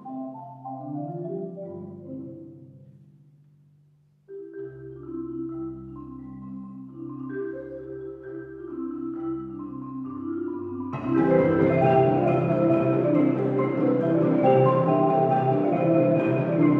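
Marimba orchestra playing classical music: a phrase dies away about four seconds in, the music starts again softly and builds, and the full ensemble comes in loudly about eleven seconds in.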